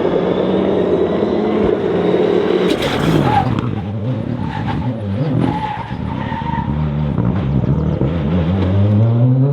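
Rally car engine at high revs while the car slides, tyres skidding. About three seconds in there is a short harsh burst of noise and the revs drop, then the engine revs rise steeply again near the end as it accelerates away.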